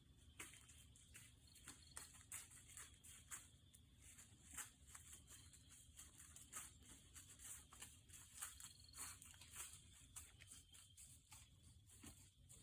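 Faint, irregular crackling and rustling of dry leaf litter, many short crisp ticks a second, over a steady high insect trill.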